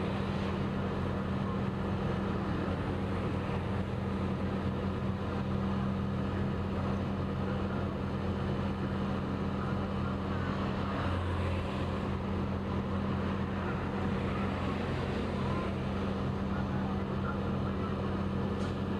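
Steady low drone of vehicle engines, unchanging throughout, with a constant hiss above it.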